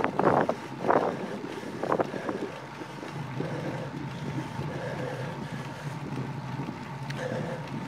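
Wind rushing over the microphone of a camera on a moving road bicycle, with a few louder gusts in the first two seconds, then steadier.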